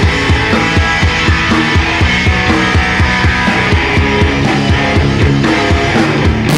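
Live rock band playing: distorted electric guitar, bass guitar and a drum kit driving a fast, steady kick-drum beat.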